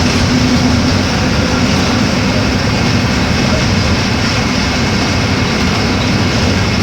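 Mercedes-Benz OF-1418 bus's diesel engine running steadily, with rolling and rattling noise from the moving bus.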